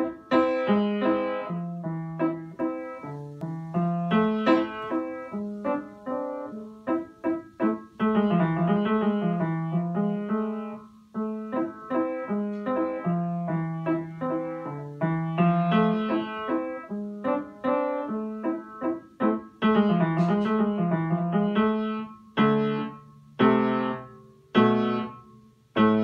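Upright piano played: a waltz, its melody running over a moving bass line, with a few separate chords struck with short gaps between them near the end.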